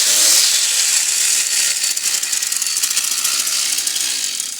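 Hyundai IC52-2R brush cutter's two-stroke engine running steadily and loudly, working properly on its newly fitted throttle cable assembly.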